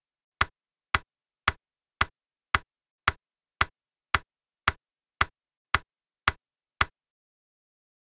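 Ticking-clock sound effect: sharp, evenly spaced ticks about two a second, stopping about seven seconds in.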